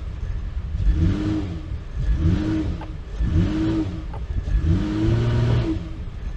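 Honda Ridgeline's V6 engine revved four times in gear, each rev rising and falling back, while the truck fails to move: its brakes are seized after sitting over the winter, as the owner suspects.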